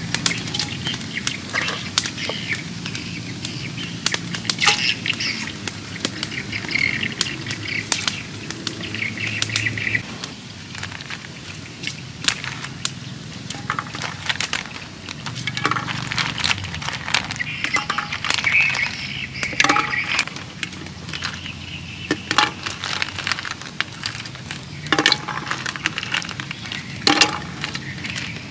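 Birds calling in the background, with scattered sharp clicks and knocks of snail shells being handled and dropped into a clay pot.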